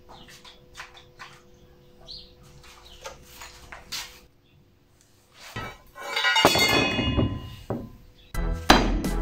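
Light clicks and knocks, then about six seconds in a loud metallic clatter with ringing, as of steel square tubing being handled, with background music coming in near the end.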